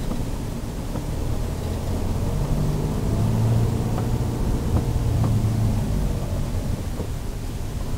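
Motorhome engine running as the van drives slowly, heard from inside the cab, over a low road rumble. The engine note is strongest in the middle stretch, and a few light knocks come through.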